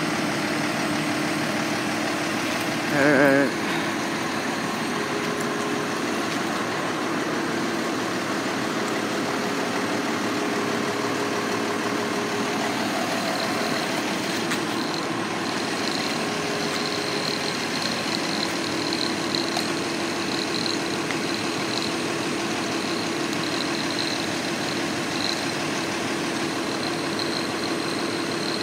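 A vehicle engine idling steadily under a constant hum, with a brief loud wavering tone about three seconds in.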